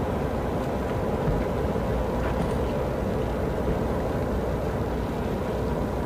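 Steady low rumble of cars in a motorcade.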